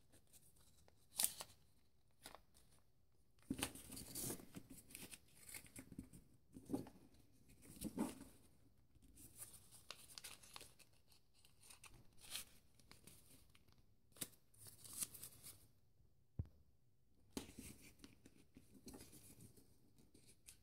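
Paper rustling and crinkling in the hands as it is folded and creased into an origami ninja star: faint, irregular rustles with a few sharper crackles and clicks.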